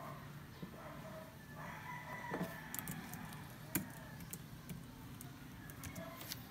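Faint, sparse clicks of fingers typing on a compact low-profile keyboard with round keys, with a faint rooster crow in the background about two seconds in.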